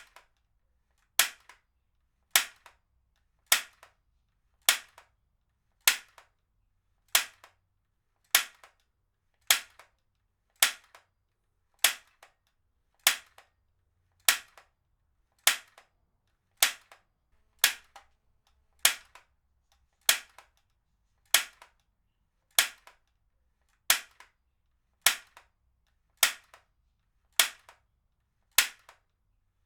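Heavy-duty stapler fired again and again at an even pace, about one sharp snap every 1.2 seconds, each dying away at once.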